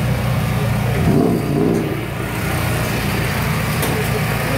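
A car engine idling steadily nearby, with a low, even pulsing run.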